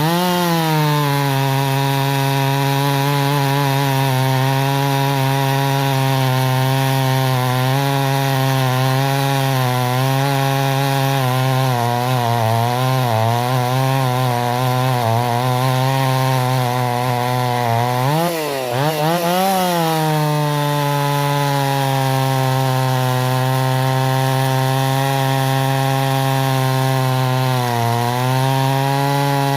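Stihl 028 AV Super two-stroke chainsaw cutting frozen beech, engine held at high revs under load. About 18 seconds in, the revs drop and climb again, and they dip briefly near the end.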